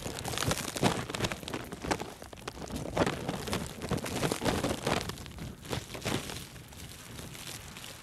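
Wind buffeting the microphone over crunching steps and rustling while walking through deep blizzard snow, in irregular bursts about once a second.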